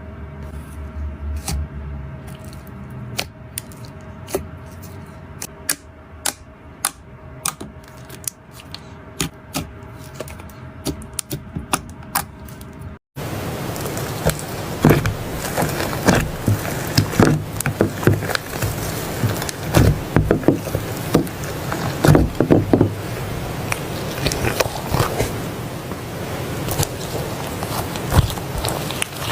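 Soft slime being handled by hand, making sticky clicks and pops: sparse at first, then after a cut about 13 seconds in, a louder, dense crackle of clicks.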